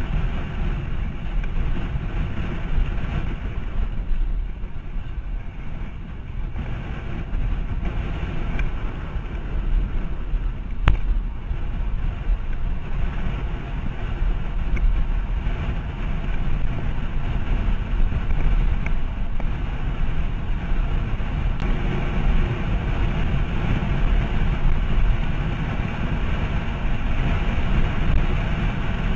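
Wind rushing over the microphone of a camera on a road bike descending fast: a steady low rumble of air.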